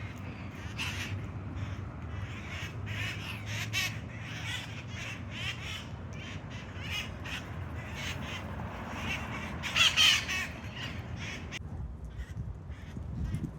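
A flock of red-masked parakeets (the wild parrots of Telegraph Hill) calling: many short, harsh squawks and chatters in quick succession, with a loud burst of squawking about ten seconds in.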